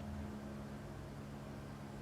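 Steady low hum with a faint hiss, from an unseen machine or fan running in the background.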